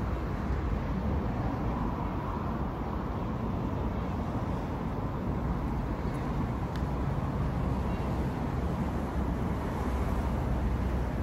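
Steady low outdoor background rumble with no distinct events, and a faint click about seven seconds in.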